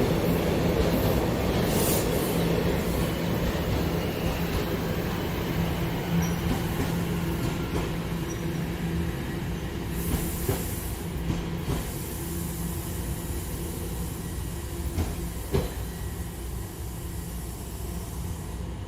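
TTC subway train running on the tracks: a steady low hum with wheel and rail noise and a few sharp clacks, fading gradually as it moves away.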